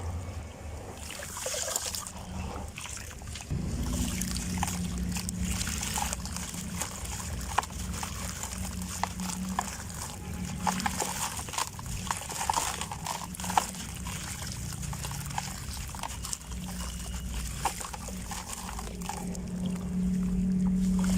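Dusty black sand-cement shapes crumbling, a gritty crunch with many small cracks and grains trickling down. A steady low hum runs underneath and grows louder near the end.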